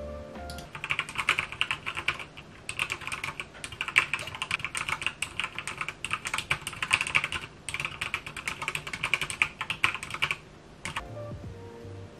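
Fast typing on a computer keyboard: a rapid patter of key clicks that starts about a second in and stops near the end, in three runs with two short pauses.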